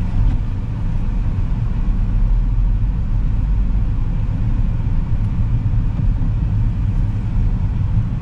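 Steady low rumble of a car on the move: engine and road noise without pause.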